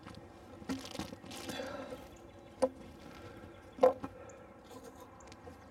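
Two sharp knocks as small square covers are set down and pressed onto a beehive's wooden inner cover, after a stretch of rustling and scraping about a second in.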